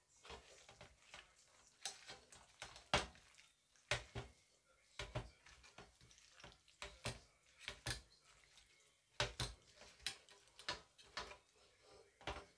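Sliced pork belly being mixed by gloved hands in its marinade in a metal pan, with irregular soft clicks and knocks of the meat and a spoon against the metal.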